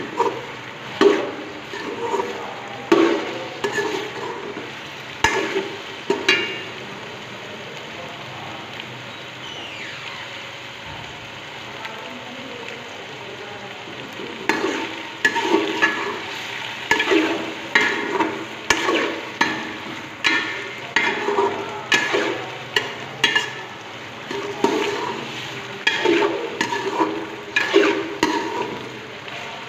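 A spoon stirring and scraping chicken pieces and carrot strips frying in hot oil in a metal pot, the food sizzling throughout. The strokes come about twice a second, pausing for several seconds near the middle where only the frying sizzle is heard.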